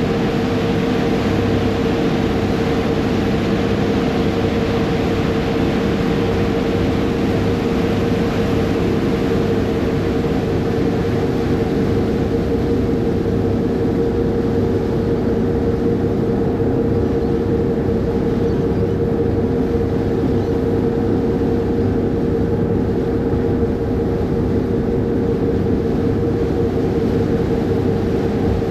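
Passenger ferry under way: its engines run steadily in a constant drone with a droning tone, over a dense rushing noise from the churned water of its wake.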